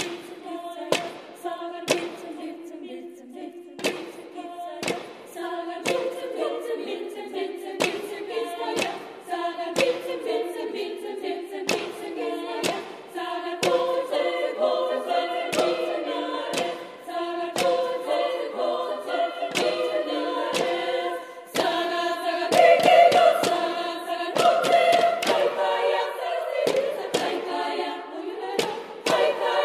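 A women's choir singing a cappella in Basque, in sustained chords that swell louder about two thirds of the way through, with a sharp knock about once a second from the singers' wooden staffs striking the floor. The choir rings in a reverberant church.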